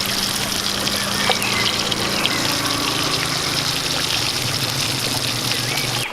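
Fish deep-frying in hot oil: a steady sizzle with many small crackles and pops and a faint low hum underneath. The sizzle stops suddenly at the very end.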